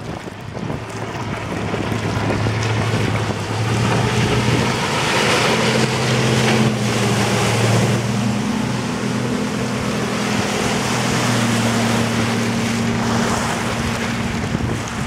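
Outboard engine of a rigid inflatable boat running at speed, with water spray and wind noise. It grows louder as the boat comes close, is loudest around the middle, then eases off as the boat pulls away.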